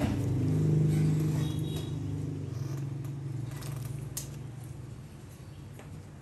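A motor running with a steady low hum, loudest about a second in and slowly fading, with a few faint clicks over it.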